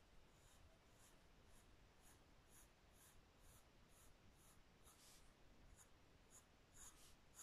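Faint scratching of a graphite pencil drawing on squared paper, in short repeated strokes about twice a second.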